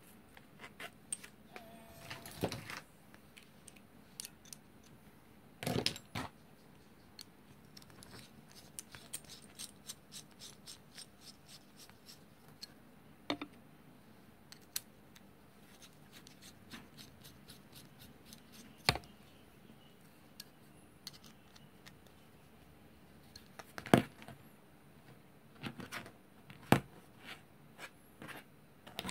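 Small metal engine-mount parts with rubber damper rings handled and fitted together by hand: light clicks and taps, with a few sharper knocks spread through.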